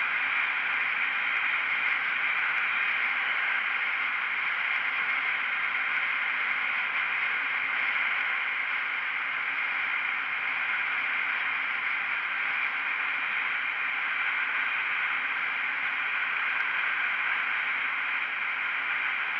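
Steady wind and road noise from a KTM Duke 125 motorcycle riding at speed: an even hiss with no changes or sudden sounds.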